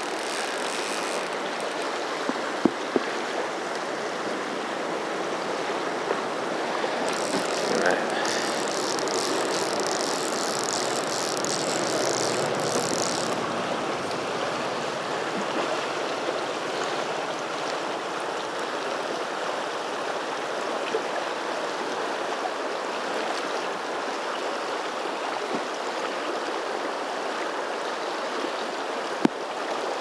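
Fast-flowing river water rushing steadily past the bank. A few sharp clicks stand out, and the sound turns hissier for several seconds from about seven seconds in.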